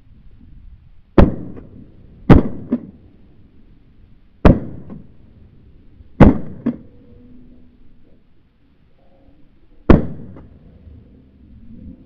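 Five shotgun shots fired at flying ducks, each a sharp crack with a short echoing tail. The first two come about a second apart, the others at uneven gaps of roughly two and three and a half seconds.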